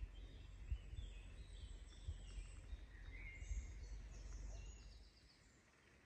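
Woodland songbirds singing in short chirpy phrases, faint, over low thuds and rumble from walking with the camera that fade out about five seconds in.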